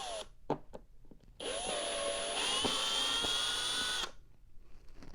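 Electric drill backing a screw out of a vacuum cleaner's plastic housing. A short whine ends just after the start and a couple of clicks follow. Then comes a longer run of about three seconds whose pitch steps up partway through.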